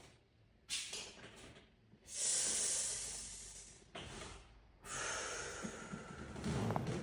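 A person breathing audibly: several long, hissing breaths in and out, the loudest about two seconds in, with a low dull sound near the end.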